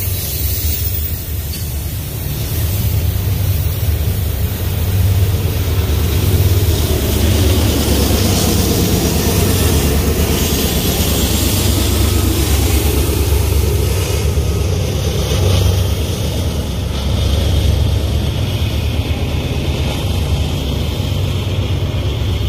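Double-stack intermodal freight train rolling past, its cars and wheels on the rails making a steady noise. The rear distributed-power diesel-electric locomotive passes about halfway through, its engine running under a steady low drone.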